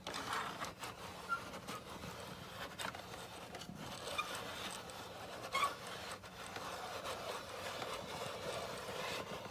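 Toy gondola being run back down its cable: a continuous scraping and rubbing of plastic parts on the line, with small clicks from the mechanism.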